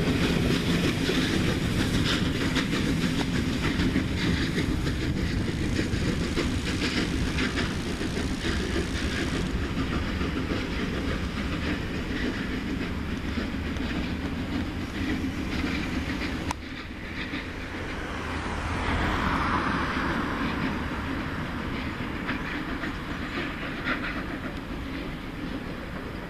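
Steam-hauled passenger train behind a Pt47 locomotive rolling away, its carriage wheels clacking over the rail joints. The rumble slowly fades as the train draws off, with an abrupt drop in level about two-thirds of the way through.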